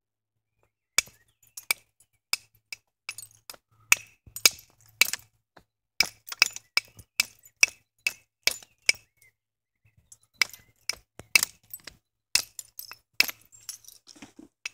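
Flint hand axe being knapped: sharp, glassy clicks of the striker hitting the flint edge and detaching flakes, in irregular runs of about two to three strikes a second, starting about a second in, with a brief pause about two-thirds of the way through.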